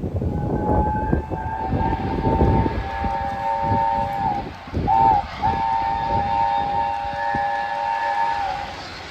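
Steam locomotive Tornado's whistle sounding as it passes: a long blast, a short toot, then another long blast, over the low rumble of the passing train.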